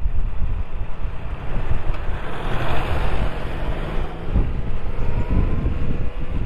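Motorcycle riding through town: engine running under heavy wind buffeting on the microphone, with a broad hiss that swells and fades around the middle.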